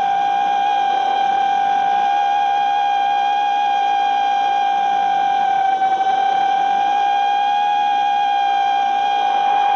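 FPV racing quadcopter's electric motors and propellers whining at a steady high pitch over a hiss of rushing air. The pitch sags slightly about six seconds in.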